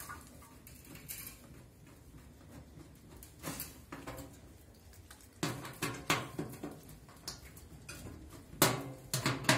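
Scattered light knocks, clicks and rattles of hands and a small socket tool working the screws and back cover of a Drean Next front-loading washing machine. They come in small clusters, the loudest knock about a second before the end.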